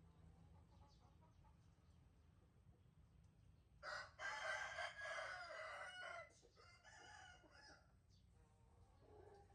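An animal call of about two seconds, starting about four seconds in, followed by a fainter, shorter call.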